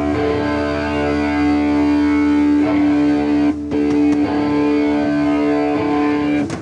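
Distorted electric guitar holding a droning chord, struck again a few times with a short break partway through, then cutting off abruptly at the end.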